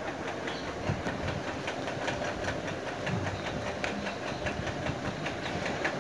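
Black plastic spoon stirring chopped vegetables into beaten egg in a plastic bowl: a quick, even run of light clicks and wet scraping, about three or four a second, over steady background noise.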